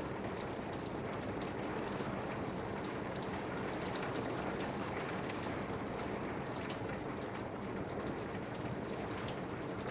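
Torrential rain falling steadily: a dense, even hiss with scattered sharp ticks of drops striking.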